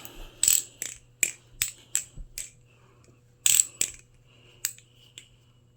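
Squid Trainer V4 balisong trainer being flipped: its handles click and clack against the blade. The clicks come about one every 0.4 s at first, then a louder cluster about three and a half seconds in and a few scattered clicks after.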